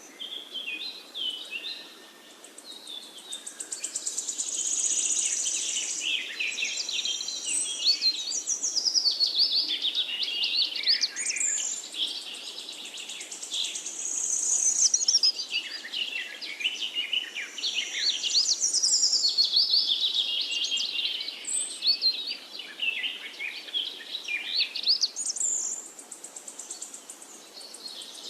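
Songbirds singing, with rapid high chirps and trills that swell into phrases every few seconds and fade between them.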